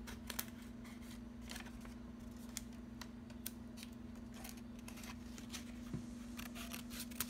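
Blue-handled scissors with metal blades cutting paper: a run of short, sharp snips at an uneven pace. A steady low hum sits underneath.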